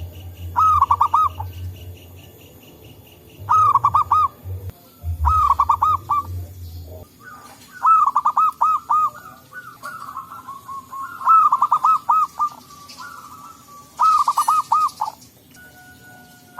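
Zebra doves (perkutut) cooing: a phrase of quick, rolling notes lasting about a second, repeated every two to three seconds, with birds answering one another so that calls overlap around the middle.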